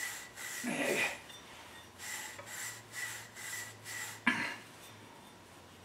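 Rhythmic scrubbing strokes, about three a second, as rust is scuffed off a metal clutch part with an abrasive. A short throat noise comes about a second in, and a sharp knock a little after four seconds.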